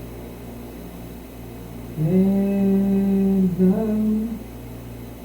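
A man humming: a long held note starting about two seconds in, then a step up to a shorter, higher note, over a faint steady low hum.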